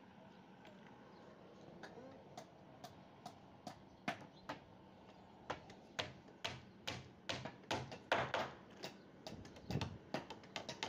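A hammer striking nails into the wooden boards of stair formwork. Sharp knocks come sparsely at first, then a run of blows about two a second from about halfway through.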